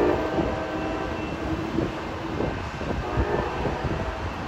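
Passenger train rumbling along the tracks as it moves away. The end of its horn chord dies out just after the start.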